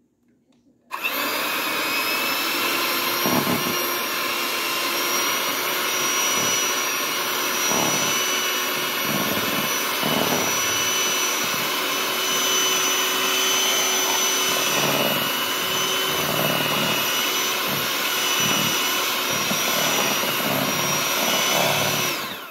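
Electric hand mixer running steadily at one speed with a whine, its beaters churning cream cheese in a stainless steel bowl and knocking against the bowl now and then. It switches on about a second in and off right at the end.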